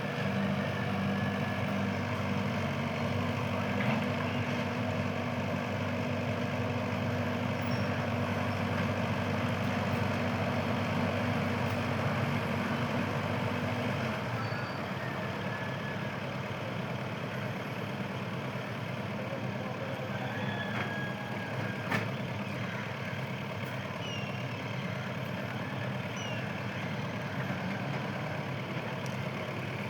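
A heavy engine idling with a steady low hum that drops back about halfway through, with a couple of sharp clicks over it.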